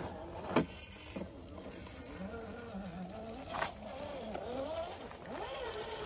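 Whine of a 1/10 scale RC rock crawler's brushed electric motor and transmission, the pitch rising and falling with the throttle as it climbs rock, with two sharp knocks, about half a second in and again at three and a half seconds.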